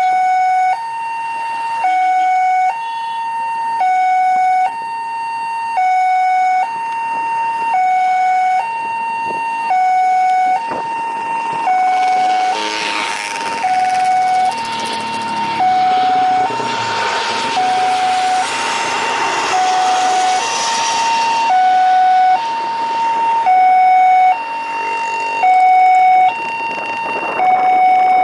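A two-tone siren alternating evenly between a high and a low note, about one note every two-thirds of a second. About twelve seconds in, the rushing noise of a jet airliner passing low swells up under it and fades away about ten seconds later.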